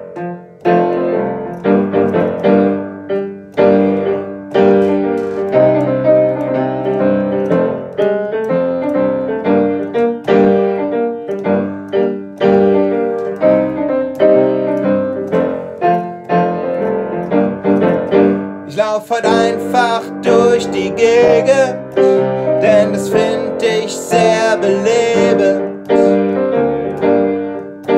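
Piano playing an instrumental interlude between sung verses: steady chords and melody notes. About two-thirds of the way through, a brighter, wavering melody line joins above the piano.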